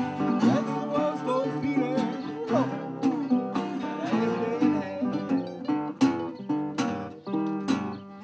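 Acoustic blues played on several guitars together, strummed and picked, one of them with a round resonator-style body. A lead line bends and glides in pitch in the first few seconds.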